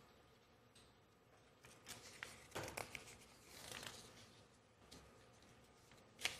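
Faint rustling and handling of paper script sheets, with a few light clicks and a sharper click near the end.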